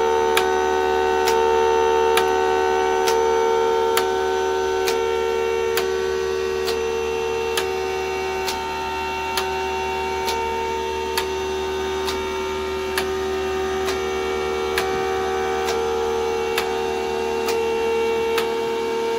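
Mini 3D-printed Thunderbolt 1003 siren running, holding a steady tone of several pitches at once while it rotates. Its 12 V timer-switched solenoids click a little under once a second, over the hum of an air-mattress pump drawing air from the siren.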